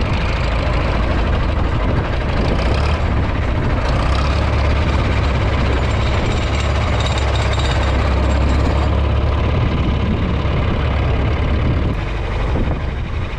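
Tractor engine running steadily with a manure spreader working, a loud low rumble with mechanical clatter over it.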